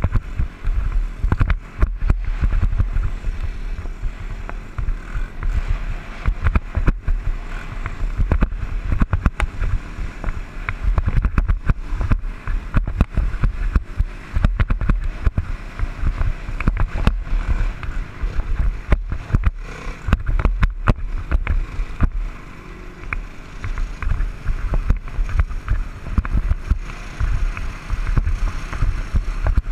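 Dirt bike engine running while riding along a dirt road, heard from a helmet-mounted camera, with frequent irregular thumps and buffets over the engine sound.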